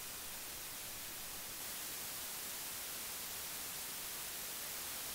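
Steady hiss of microphone preamp noise, audio interfaces turned up to high gain with no signal: first a MOTU UltraLite-mk5, then a Universal Audio Volt 876. The hiss gets slightly louder and brighter about one and a half seconds in, where one interface's noise gives way to the next.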